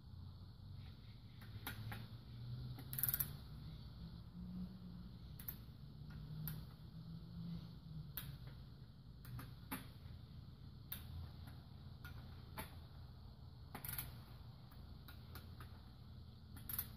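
Wrench ratcheting on the connecting rod cap bolts of a Toyota 1ZZ-FE engine as they are tightened to 15 ft-lb: scattered sharp clicks a second or two apart, one louder about three seconds in and another near the end.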